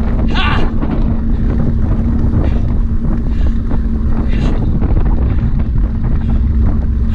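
Wind rumbling on the microphone of a camera moving along at running pace, over a steady low hum. About half a second in there is a short, high-pitched call.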